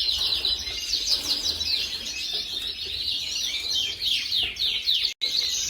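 Domestic canary, a Gloster canary, singing a continuous fast song of quick trills and sweeping chirps, broken by a brief cut in the sound about five seconds in.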